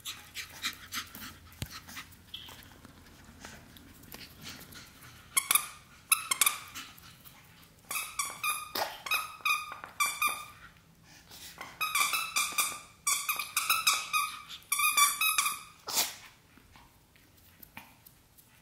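Squeaker in a red plush dog toy squeaking in quick runs of short, high, steady-pitched squeaks, several a second, as a Shih Tzu puppy chews it. Faint light clicks come before the squeaking starts, and it stops a few seconds before the end.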